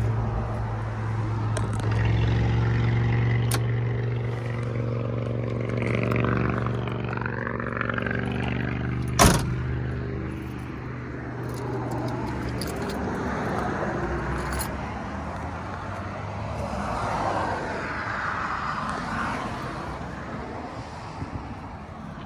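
1985 Nissan 720 pickup's rebuilt four-cylinder engine idling steadily, with one sharp knock about nine seconds in. The engine fades out around the middle, leaving scuffing and rustling.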